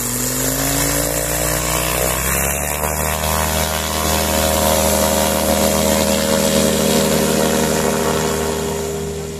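Ultralight trike's rear pusher engine and propeller revving up to full power over the first few seconds as the trike starts its takeoff run on the sand. It then holds a steady high drone that fades a little near the end as the trike rolls away.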